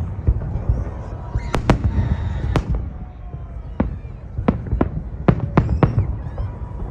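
Fireworks salute: shells bursting in a string of sharp bangs at irregular intervals over a steady low rumble.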